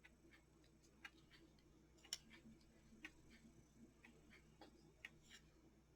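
Faint small clicks and ticks in near silence, a slightly sharper one about once a second with softer ones between.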